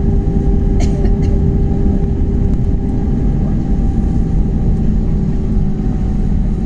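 Airliner cabin noise on the ground just after landing: a steady low rumble with a constant engine hum, and a couple of faint clicks about a second in.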